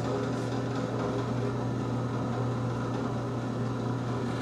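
Benchtop drill press running steadily, its motor giving a constant hum.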